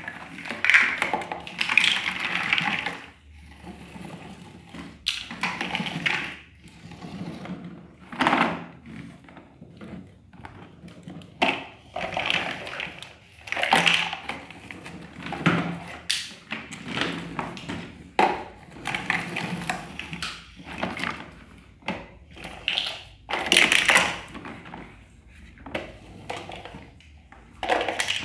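Plastic bucket of a ride-on toy excavator scraping and knocking on a tiled floor and against plastic building blocks, in irregular bursts with short pauses between them.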